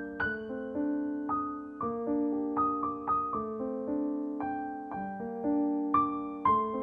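Gentle background piano music: single notes and chords struck at an easy pace, about two a second, each ringing on and fading.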